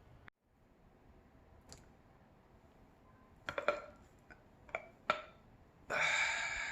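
Neck joints cracking under manipulation: a scatter of sharp clicks and pops, with a quick cluster of them about halfway through. Near the end comes a louder, drawn-out sound lasting under a second.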